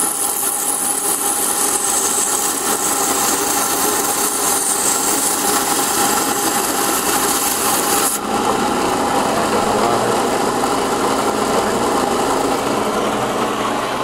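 Inland coral bandsaw running steadily, its blade grinding through the skeleton of a Fungia plate coral to cut frags. A loud high hiss from the cut drops away suddenly about eight seconds in, leaving the steady run of the saw's motor and blade.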